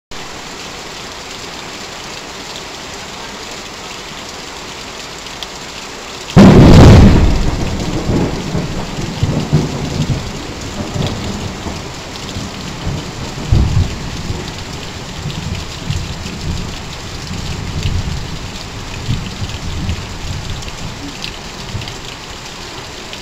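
Heavy rain drumming on corrugated metal roofs and sheets, with runoff pouring off a roof edge onto the ground. About six seconds in, a sudden loud thunderclap cracks overhead and rolls on as deep rumbling thunder that slowly dies away.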